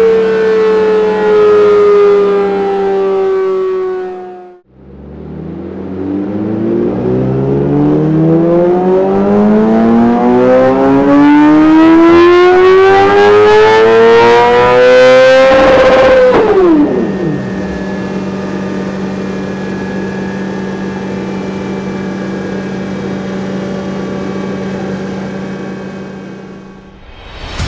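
Yamaha YZF-R6 inline-four on a dyno. The revs fall away at first; after a brief cut the engine makes one long full-throttle pull, climbing steadily in pitch to near the top of the rev range about 16 s in. Then the throttle shuts, the revs drop sharply, and it runs steadily at lower revs over a constant low hum.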